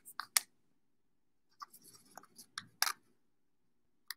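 Soft rustling and scattered clicks of a thin plastic penny sleeve being handled as a baseball card is slid into it, with a sharper click a little under three seconds in.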